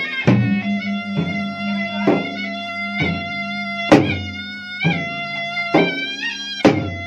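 Bugis-Makassar gendang drums, large double-headed barrel drums, beaten with a stick and the bare hand in a steady rhythm, a sharp stroke about every second with lighter strokes between, the loudest about four seconds in. Over them a pui-pui, a small reedy shawm, holds a continuous nasal melody.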